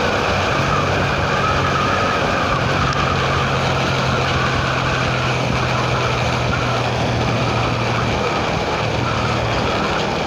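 Motorcycle engine running at a steady speed while riding, with a steady low hum under heavy wind and road noise.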